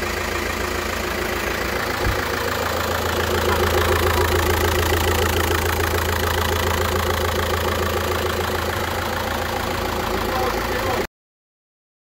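Volkswagen Golf V's 1.9 TDI BKC four-cylinder diesel engine running steadily at idle with the bonnet up, after its failed KKK turbocharger has been replaced. The sound cuts off suddenly near the end.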